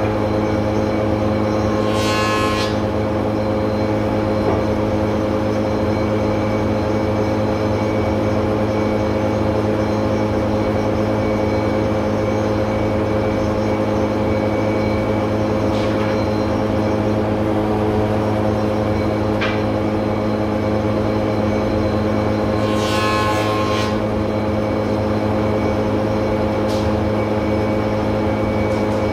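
Spindle moulder and dust extractor running together: a steady, loud motor hum. Twice, about two seconds in and again around 23 seconds in, a short high-pitched screech rises above it.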